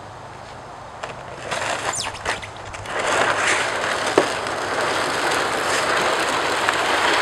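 Plastic sled scraping as it slides down an icy driveway, a rough, steady hiss that comes in about three seconds in as the sled nears. A few crackles and knocks come before it, and one sharp click a little after four seconds.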